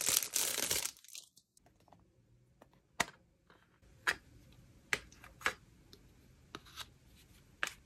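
Clear plastic sleeve crinkling for about the first second as a pen tray is slid out of it, then scattered light clicks and taps as the plastic pen tray and pen are handled.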